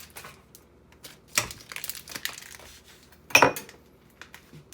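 Kitchen handling sounds: packaging crinkling and a few clicks and knocks of utensils or dishes on a counter, the loudest knock about three and a half seconds in.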